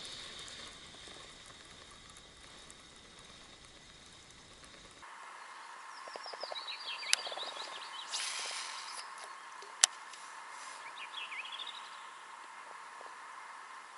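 Quiet evening riverside ambience with small birds singing short, sweeping chirps several times in the second half. Two sharp clicks and a brief hiss come in the middle.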